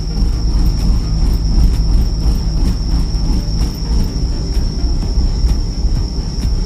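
Fishing boat's engine running steadily with a low rumble, under a constant high-pitched whine.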